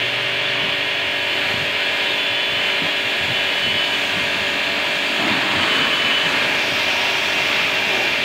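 Pressure washer running steadily while washing a motorcycle: a constant motor hum under the hiss of the water jet.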